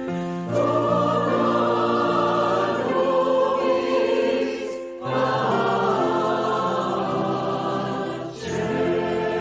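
Mixed choir of men's and women's voices singing sustained chords, recorded as a virtual choir. The phrases are long, with short breath breaks about halfway through and again near the end.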